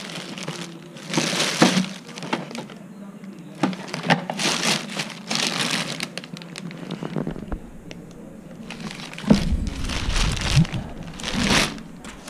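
Plastic packaging wrap crinkling and rustling in repeated bursts as it is handled inside a cardboard box, with a few low handling thumps about three quarters of the way through.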